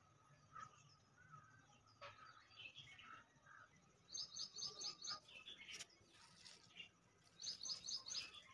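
Small birds chirping faintly: two quick runs of about five high chirps each, about four seconds in and again near the end, with fainter calls between. A single sharp click falls between the two runs.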